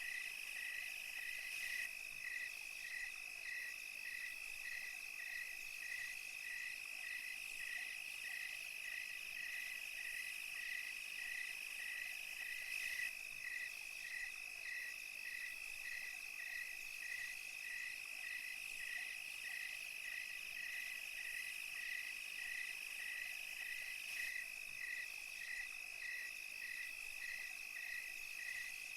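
Night chorus of crickets and other insects: a steady high trill, with a regular chirp repeating about one and a half times a second.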